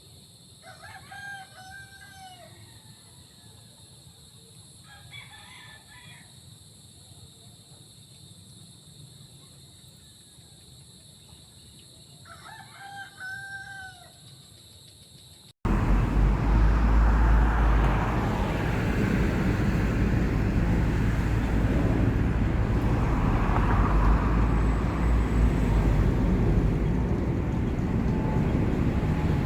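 A rooster crows three times, each call about a second long. About halfway through, the sound cuts abruptly to loud wind buffeting the microphone: a steady low rumble that swells in gusts.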